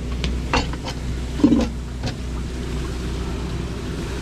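Steady low hum of the fishing boat's machinery, with a few short knocks and clatters on deck in the first two seconds.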